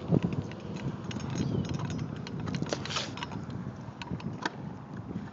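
Kick scooter wheels rolling over skatepark concrete: a steady low rumble with many small clicks scattered through it.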